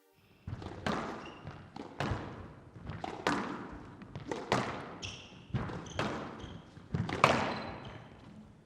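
Squash rally: sharp smacks of the racket striking the ball and the ball hitting the court walls, about two a second, echoing in the court, with a few brief high squeaks in between.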